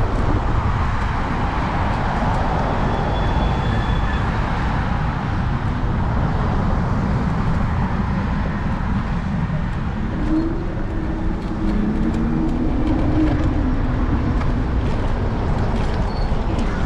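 Wind on the microphone and road rumble from an electric scooter riding through city traffic. About ten seconds in, a low steady tone sounds for roughly three seconds.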